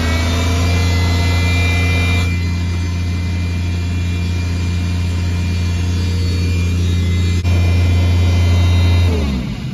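The air compressor's engine running steadily at idle with a deep, even hum, on test after work on its burnt wiring loom. A click sounds about seven seconds in. The engine is shut off near the end and winds down to a stop.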